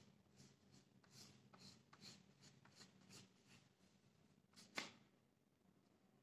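Faint, soft rubbing of hands over a large sheet of paper, about two or three brushing strokes a second, as the paper is pressed by hand onto an inked surface to print a layer of white ink. A single sharper click comes about five seconds in, then the rubbing dies down.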